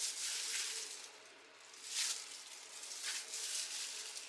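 Chicken pieces frying in oil and butter in a pan, a sizzling hiss that swells and fades a few times.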